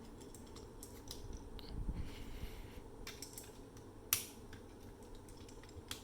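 A plastic transforming robot toy being handled: light rubbing and scattered small plastic clicks, with one sharp click about four seconds in.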